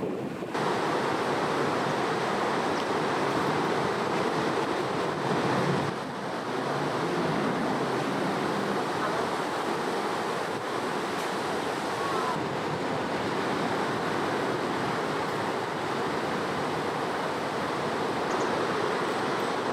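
Flood-swollen river rushing steadily, a continuous wash of water noise from high water after a typhoon.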